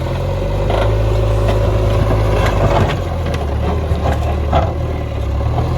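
JCB backhoe loader's diesel engine running steadily, with scattered short knocks and clatter over it.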